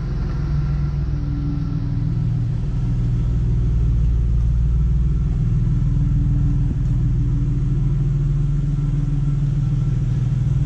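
Car engine running steadily, a continuous low drone with only slight shifts in pitch.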